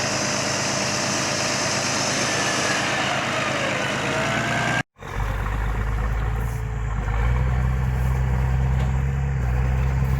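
Engines of 4x4 off-road vehicles running, with a hard edit cut about five seconds in; in the second part a deep engine note rises a step about seven seconds in.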